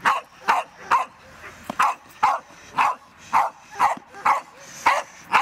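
A dog barking repeatedly in short, sharp barks, about two a second, at a helper who is provoking it in protection training.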